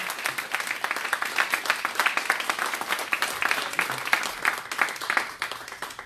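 Audience applauding: many people clapping densely at the end of a talk, the clapping thinning and fading out near the end.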